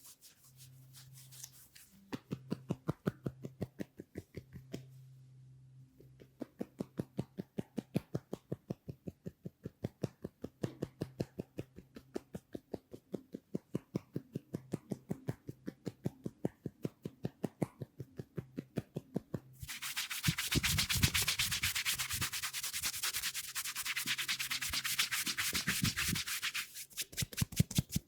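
Massage tapping: hands strike rhythmically at about five a second, with a short pause. About two-thirds of the way through, a loud rough rubbing of hands over skin and hair joins the taps for several seconds.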